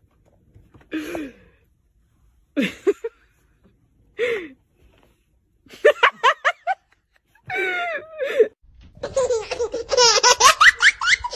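A person laughing: a few short separate sounds at first, then quick runs of laughter, louder and higher-pitched from about nine seconds in.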